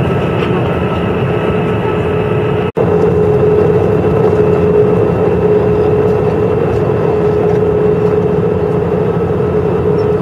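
Steady cabin noise inside an Airbus A319-100 in flight: the jet engines and the air rushing past the fuselage make a continuous rush with a steady hum through it. The sound cuts out for an instant a little under three seconds in.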